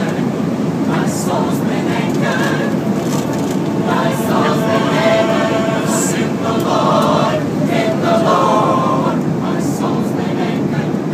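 A choir singing a cappella over the steady drone of an airliner cabin. The voices come in strongly about four seconds in and hold long notes.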